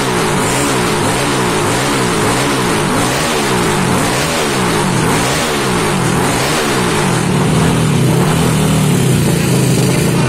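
Yamaha Aerox scooter engine being revved up and down over and over, about once a second. For the last few seconds it is held at higher, steadier revs and runs louder.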